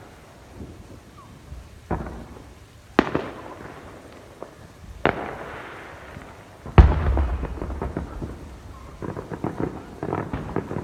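Fireworks exploding: four separate booms a second or two apart, the loudest about seven seconds in with a long rumbling tail, then rapid crackling pops from about nine seconds in.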